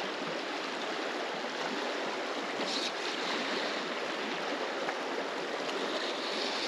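South Platte River current flowing steadily, an even rush of moving water.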